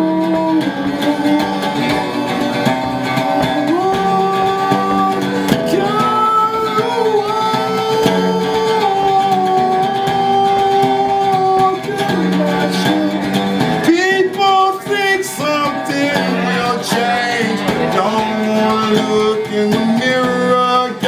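A man singing long held notes over his own electric guitar, with no clear words.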